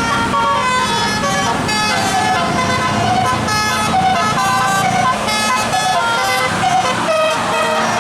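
Tourist bus's telolet musical air horn playing a tune of short notes that step up and down in pitch, over the bus engine running.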